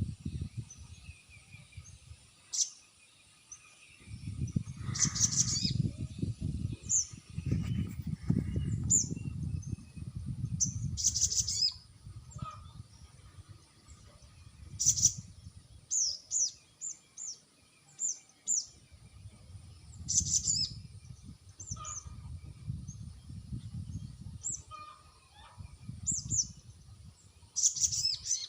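Sogon birds calling: short, high chirps and brief notes that slide downward, repeated irregularly, over stretches of low rumbling noise.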